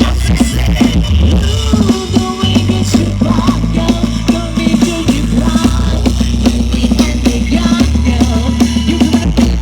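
Loud Thai party music with singing and a very heavy bass line, blasted through a Badan Brand rot hae parade sound-truck system.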